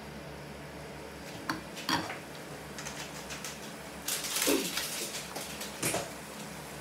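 Kitchen utensils and cookware clinking and scraping: a couple of sharp clinks about one and a half and two seconds in, a longer scrape about four seconds in, and another clink near the end, over a steady low background.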